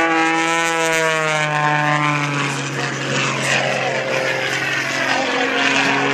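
Propeller airplane flying past, its engine note sliding down in pitch over the first couple of seconds as it goes by, then running steadily.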